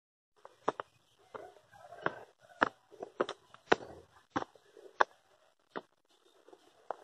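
Footsteps climbing a steep dirt and rock trail: shoes crunching on soil and loose stones, a sharp step about every two-thirds of a second.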